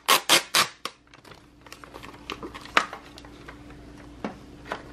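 Crinkling and crackling of plastic toy packaging being handled and opened: a quick run of sharp crackles in the first second, then softer scattered crinkles with a couple of sharper crackles later.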